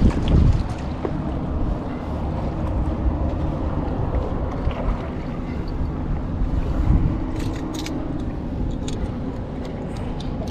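Wind buffeting the microphone outdoors, a steady low rumble, with a couple of heavier thumps and a few brief clicks in the second half.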